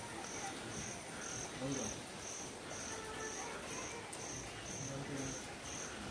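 An insect chirping in a steady, even rhythm of about two high chirps a second, with faint voices in the background.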